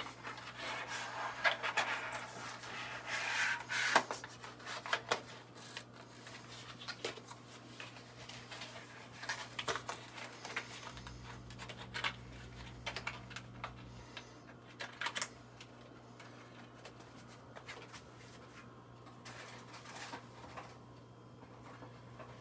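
Makeup products and their packaging being handled: scattered light clicks, taps and rustling, busiest in the first few seconds, over a steady low hum.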